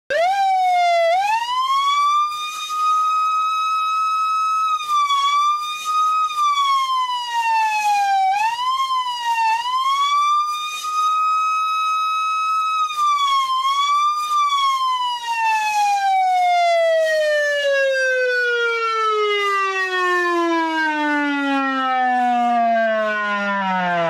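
Federal Sign & Signal PA20A police siren, reconstructed as heard in 1970s films, sounding a wail. It climbs quickly to a high tone and holds it, dipping and recovering briefly three times, then slides slowly down in pitch over about ten seconds and cuts off abruptly at a low pitch.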